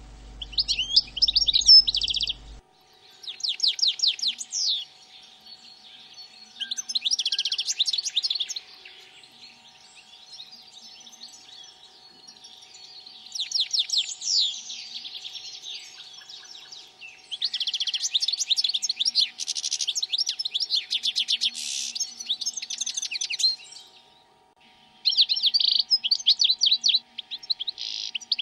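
Small songbird singing: bursts of rapid, high chirps and trills in several phrases a few seconds apart, the longest lasting about six seconds.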